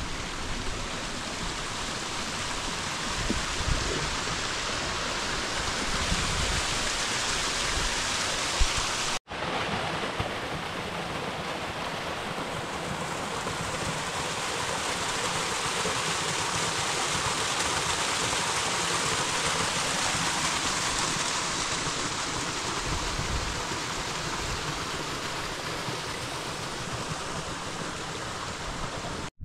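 Steady rush of running water from a mountain stream, continuous throughout and cutting out for an instant about nine seconds in.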